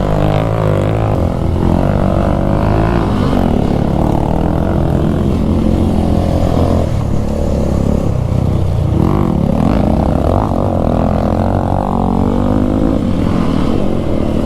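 Motorcycle engine running under load, revs rising and falling with the throttle.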